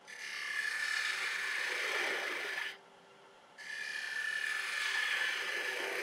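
A turning tool cutting into a spinning ash blank on a wood lathe, rounding down the top of a peppermill. The cut goes as a steady hiss in two passes, with a short break a little under three seconds in, over the lathe's faint steady hum.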